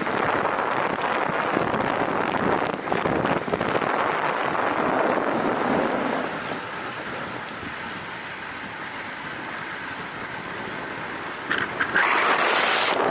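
Loud wind noise buffeting the microphone of a camera riding on a moving road bicycle, a rushing noise that eases about six seconds in and surges again near the end.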